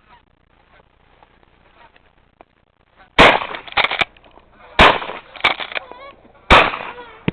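Three loud shotgun shots from a 10-gauge Browning BPS pump shotgun, about a second and a half apart, each trailing off in an echo, with smaller sharp reports between them. Geese honk faintly after the last shots.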